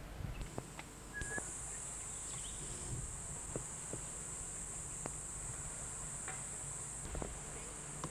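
Insects shrilling in the trees: a steady high-pitched buzz that sets in about half a second in and grows louder about a second in, with a few faint clicks beneath it.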